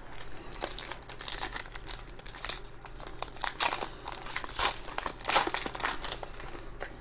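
Foil trading-card pack being torn open and crinkled in the hands, with irregular crackles of the wrapper throughout, loudest a little past the middle.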